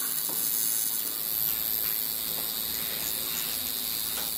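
Coil tattoo machine buzzing steadily while inking lettering into skin, heard as an even, hissy drone.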